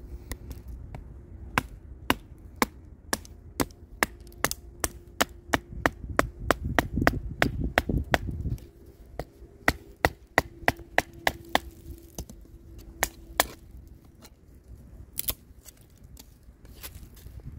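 Batoning with a Kubey 269 knife: a wooden baton strikes the knife's spine again and again, driving the blade down to split a stick. The result is a quick series of sharp wooden knocks, about two a second. They stop about three quarters of the way through, and two more come near the end.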